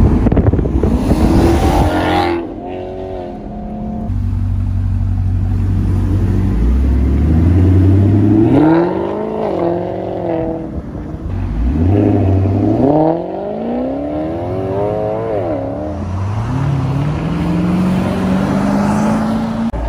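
Maserati GranTurismo MC's 4.7-litre V8 on its factory stock exhaust, accelerating hard. The engine note rises in pitch three times as it pulls, and drops away in between.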